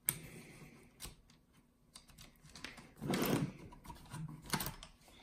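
Scattered small clicks and ticks of plastic and metal parts being handled and lifted off the front end of an RC nitro truggy, with a louder handling sound about three seconds in.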